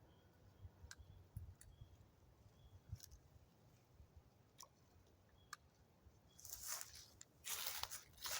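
Faint scattered clicks, then from about six seconds in a loud crinkling, rustling noise in repeated bursts.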